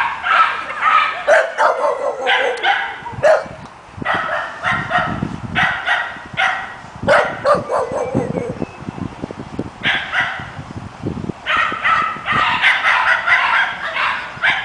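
Small dog barking and yipping repeatedly in quick runs of sharp, high barks, with two short pauses.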